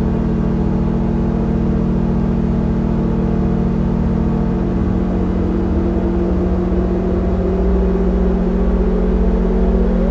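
SOMA Lyra-8 synthesizer drone: several slightly detuned oscillators held together in a dense, steady drone with reverb and drive. One tone glides slowly upward through the second half, and the bass shifts about halfway through and starts to pulse near the end.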